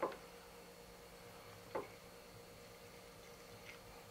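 Quiet room with a faint steady hum and two soft clicks, one right at the start and one nearly two seconds in, from speaker wire being handled at a subwoofer's terminals.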